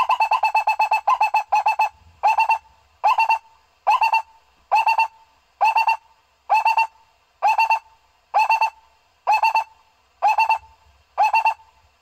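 Barbet calls: a fast run of throaty notes that slows within the first two seconds into a steady series of single notes repeated about once a second.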